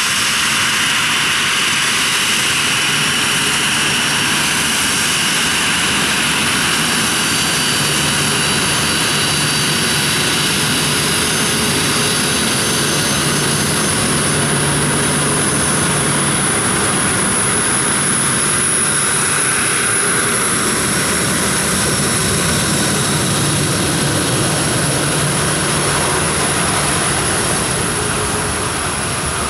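Boeing 737-300's CFM56-3 turbofan engines running loud and steady: a high whine over a broad rushing noise, easing off slightly near the end.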